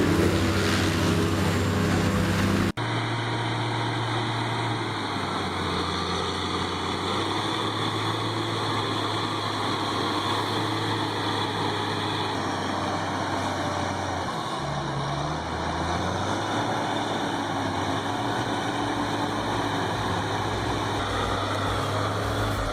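A heavy machine's engine running steadily, with an abrupt change of sound about three seconds in and a brief shift in the engine note around the middle.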